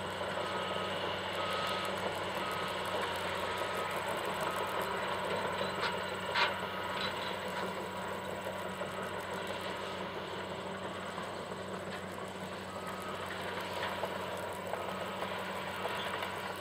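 Steady rumble of earth-moving machinery, with a reversing alarm beeping a little faster than once a second through the first few seconds and again near the end. A single sharp knock about six seconds in.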